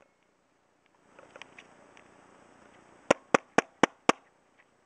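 Five sharp, evenly spaced clicks, about four a second, near the end, from a malfunctioning Kodak EasyShare Z1285 digital camera being worked by hand, with faint handling rustle a little earlier.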